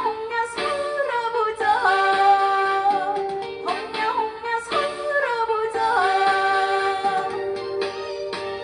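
A woman singing a Korean trot song over its backing band, holding long notes that slide and bend in pitch.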